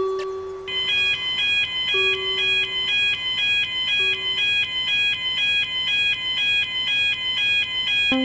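Japanese railroad crossing (fumikiri) warning bell ringing its alternating high tones in a steady, even rhythm, starting about a second in and cutting off suddenly at the end. A lower held tone sounds at the start and twice more briefly.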